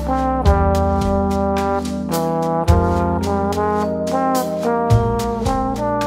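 Trombone playing a melody with slides between notes, over keyboard chords and deep bass notes that change about every two seconds, with a steady ticking beat.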